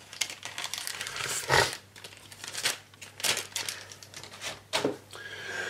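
Thin plastic bag crinkling and rustling in irregular bursts as plastic model-kit sprues are handled in and out of it.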